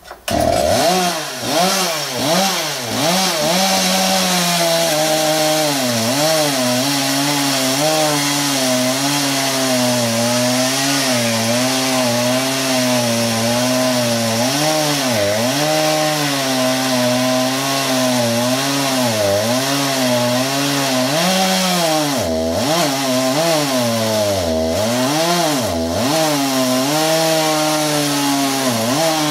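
A small motor running loud and continuously, its pitch wavering up and down all the time; it starts abruptly.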